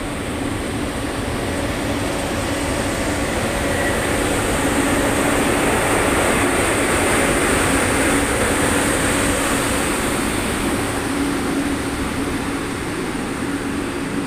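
ChS6 electric locomotive pulling away past the platform: a loud, steady rushing noise with a constant hum and a high steady whine. It swells as the locomotive passes close and eases toward the end as the coaches roll by.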